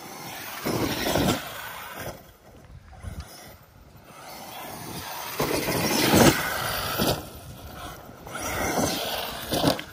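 Arrma Kraton 8S 1/5-scale electric RC monster truck driving hard over dirt, its motor and drivetrain whirring, with several knocks and clatters of hard landings and tumbles, the loudest about six seconds in.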